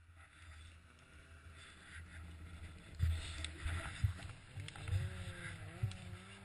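Snowmobile engine running under way, its pitch rising and falling with the throttle over a steady low rumble, with several sharp knocks.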